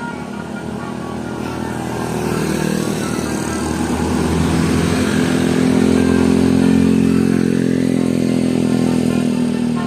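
A road vehicle's engine passing close by: it grows steadily louder, is loudest about six to seven seconds in, then begins to fade.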